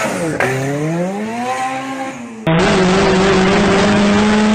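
Car engine revving, its pitch dipping and then climbing and easing off. After a sudden cut, an engine held at a steady high speed is heard from inside the cabin of a car on a race track.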